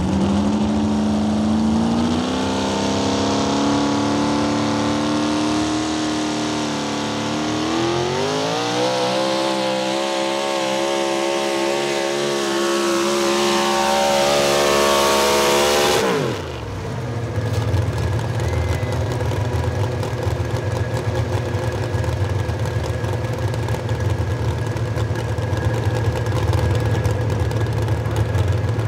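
Pulling truck's engine running hard under load down the track, its pitch climbing steadily with some wavering for about sixteen seconds. Then the throttle is cut and the pitch falls sharply, and the engine settles to a steady low idle.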